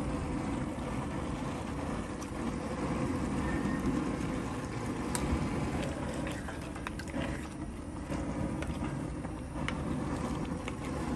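Propane burner running steadily under a cast-iron pot, with a wooden spoon stirring thick tomato sauce and a few light knocks of spoon against pot.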